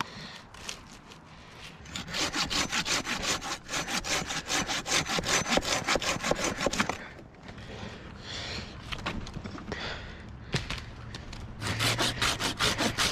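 Pruning handsaw cutting through a tree limb in quick, even strokes. A long run of sawing stops, and after a pause of a few seconds the sawing starts again near the end.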